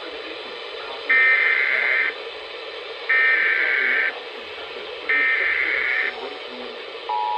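Emergency Alert System SAME header on NOAA Weather Radio: three one-second bursts of digital data tones, a second apart, over steady radio hiss. The steady two-tone attention signal starts near the end. Together they mark the start of a new alert, here a severe thunderstorm warning.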